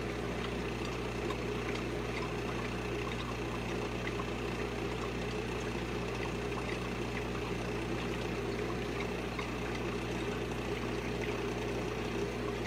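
Aquarium pump motor humming steadily, with a wash of moving water and a few faint small ticks.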